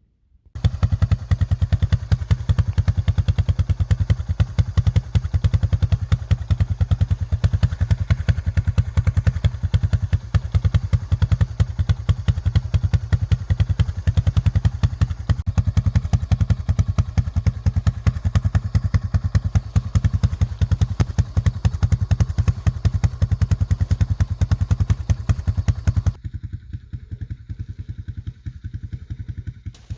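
ATV (four-wheeler) engine running while being ridden, a steady rapid pulsing with rattle over it; it starts abruptly about half a second in, and near the end the rattle falls away and the engine runs quieter.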